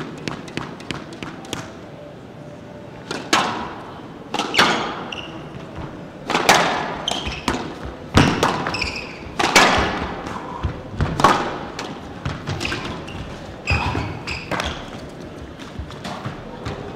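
Squash rally: the ball is struck hard by rackets and smacks off the court walls, a sharp knock roughly every second and a half from about three seconds in, each ringing briefly in the hall.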